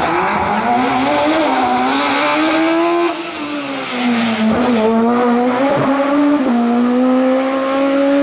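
Race-prepared first-generation VW Scirocco hill-climb car accelerating hard, its engine note climbing in pitch. A sudden drop in pitch about two-thirds of the way through is an upshift, after which the note climbs again.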